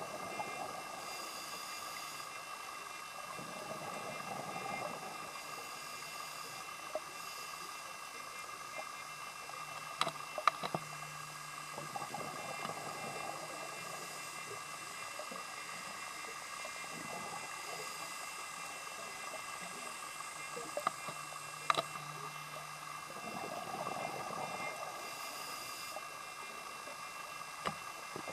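Underwater recording from a scuba diver's camera: a steady hiss and hum, with a scuba regulator's breathing coming through a few times as hissing inhalations and bubbling exhalations, and a few sharp clicks.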